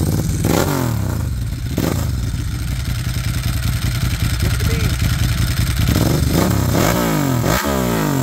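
Ducati Paul Smart 1000's air-cooled two-valve L-twin running through its Termignoni exhaust. It is blipped on the throttle about half a second in and again near two seconds, then given a run of quick blips near the end, the revs rising and falling each time.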